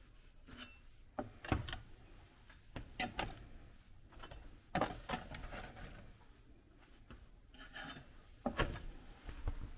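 Metal spatula scraping baked sugar cookies off a silicone baking mat and setting them down on a wooden board: scattered short scrapes and soft knocks.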